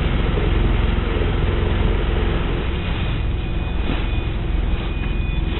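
Contest 29 sailboat's auxiliary engine (the 'Iron Jenny') running steadily as the boat motors under power with its sails down, over a steady rush of wind and water.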